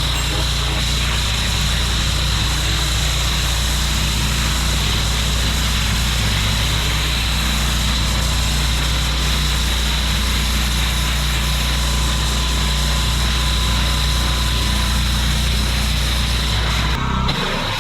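Engine-driven pressure washer running steadily under a hissing high-pressure water jet blasting moss off block paving. Near the end the engine hum drops away, leaving the hiss of water.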